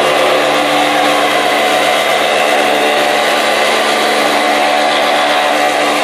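Broom-handle making machine running steadily and loudly as a wooden pole is fed through its rollers and shaved round by the cutter head, a constant motor hum under the noise of the cutting.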